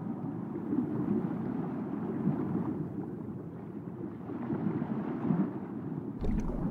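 Muffled, low, rumbling underwater noise picked up by the camera in its housing, rising and falling irregularly, with a short knock near the end.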